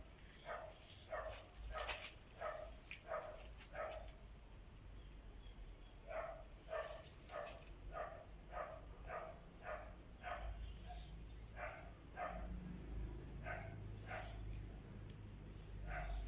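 Kitten stuck up a tree mewing over and over, short calls about two a second in a few runs with brief pauses: distress calls from a kitten afraid to climb down.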